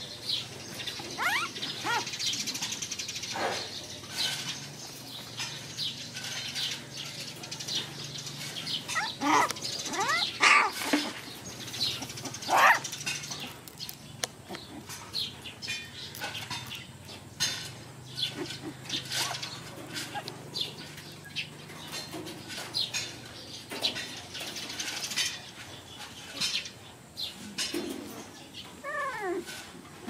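Several young puppies whimpering and squeaking, with short, high cries that rise or fall in pitch, over and over.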